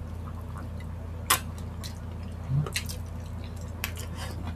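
Wet mouth sounds of eating spicy chicken feet in sauce: sucking and sharp lip smacks, the loudest about a second in and a few more near the end, over a steady low hum.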